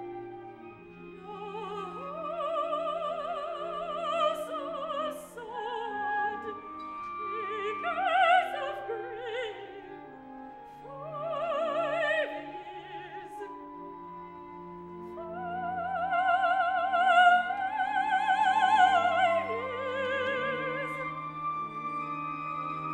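Opera singing with a chamber orchestra: a high voice sings long notes with wide vibrato over held orchestral chords. The voice swells to its loudest in a phrase near the end.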